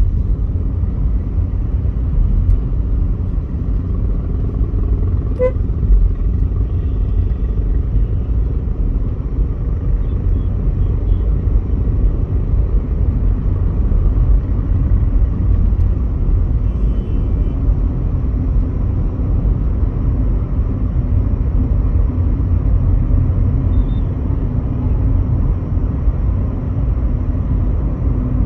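Steady low road and engine rumble heard inside the cabin of a Volkswagen Polo GT cruising through city traffic. A short horn beep sounds once about five seconds in.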